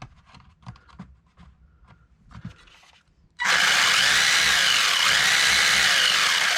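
Brushed electric motor and drivetrain of a WLToys 144001 RC car run at its highest speed setting. After a few faint clicks, a loud high whine starts about three and a half seconds in, and its pitch rises and falls.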